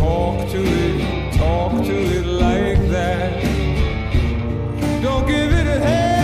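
Background music: a song with a singing voice over a steady accompaniment.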